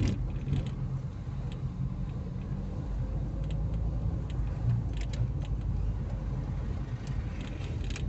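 Car engine running with a steady low hum, heard from inside the cabin while moving slowly in traffic, with a few faint clicks.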